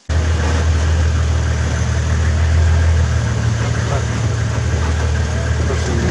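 Open safari vehicle's engine running with a steady low drone.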